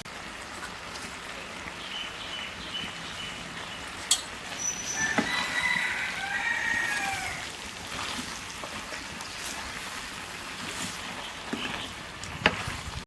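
Steady hiss with bird calls: a few short high chirps, then a longer pitched call with bending notes about five seconds in. A sharp click comes about four seconds in.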